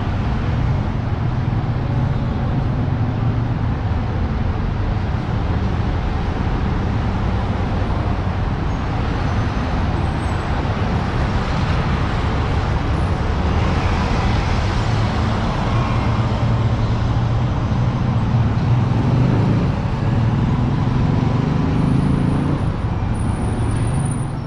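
Busy city road traffic heard from above: cars, buses and motorbikes passing in a continuous low rumble.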